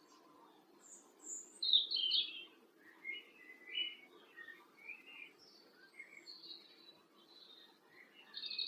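Songbird singing a run of short, varied warbling phrases, with a steady low hum of background noise underneath.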